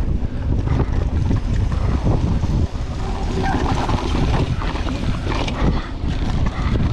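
Wind rushing over the microphone while a 2022 Pivot Firebird mountain bike rattles down a rocky dirt trail at speed, its tyres running over gravel with frequent knocks and clatter from the bike.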